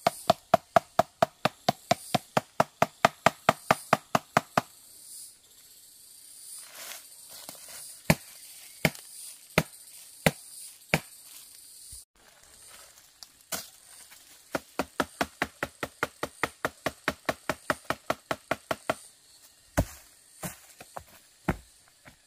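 Rapid chopping, a blade striking wood, as in chopping food on a board. It comes in two fast runs of about six strokes a second, with slower single chops between them. Forest insects hum steadily behind.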